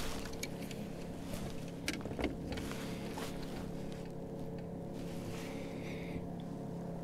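Steady hum of a small electric motor, with a few light clicks and knocks in the first few seconds.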